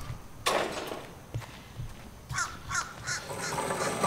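Crows cawing outdoors: several short calls, one about half a second in and a run of them in the second half.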